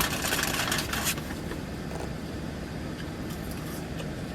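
About a second of rustling, then a steady low rumble of a running vehicle.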